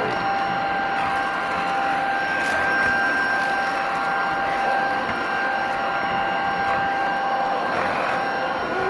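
Tocmoc T230 cordless stick vacuum running steadily, its motor giving a constant high whine over the rush of air.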